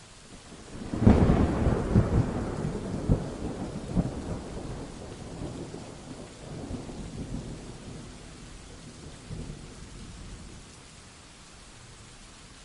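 A thunderclap over steady heavy rain: a sudden crack about a second in, then a crackling rumble with a few sharp peaks that slowly fades out over the next several seconds, leaving the rain.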